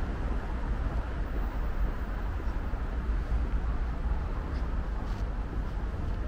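Wind buffeting a handheld camera's microphone as a low, uneven rumble, over a steady outdoor hiss.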